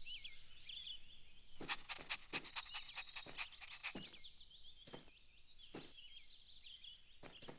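Faint chirping of small birds, with a quick run of soft taps about two seconds in and a few single taps later on.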